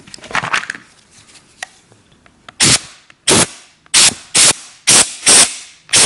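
Compressed-air blow gun (airline) fired in short blasts into the jets and small passages of a stripped Stihl TS350/TS360 carburetor to clear out dirt: about six sharp hissing puffs, roughly two a second, starting halfway through.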